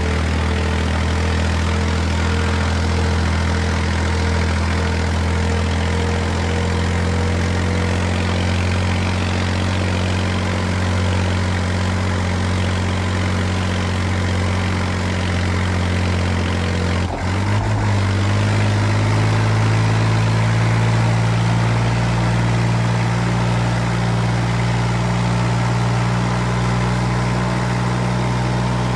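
Tractor diesel engine running at a steady low speed, then about two-thirds of the way through its speed rises sharply and it holds at the higher speed.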